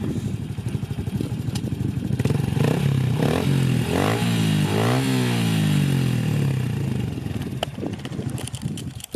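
Honda CRF110 pit bike's small single-cylinder four-stroke engine running, its revs rising and falling twice in the middle before settling back. A few sharp clicks come near the end.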